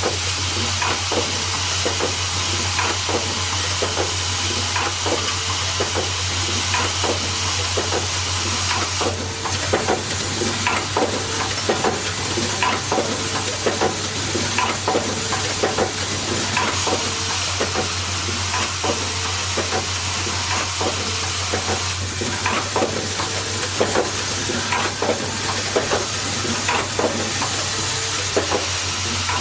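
Automatic welding machine running: a steady low hum under a constant hiss, with frequent irregular clicks of the mechanism.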